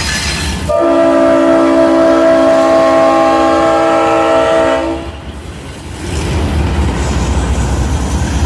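Air horn on a Norfolk Southern GE C40-9W diesel locomotive sounding one long blast of about four seconds, a chord of several steady notes, starting about a second in. After it the passing train's diesel engines and wheels carry on as a steady low rumble.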